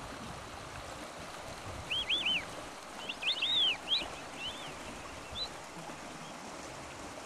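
Steady rush of water from the stream and tidal flats, with a bird giving short arched calls in several quick groups from about two seconds in until past the middle.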